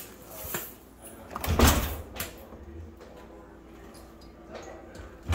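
Dishwasher door pulled open, with a loud clunk about a second and a half in and a short click just after; another heavy thump comes at the very end.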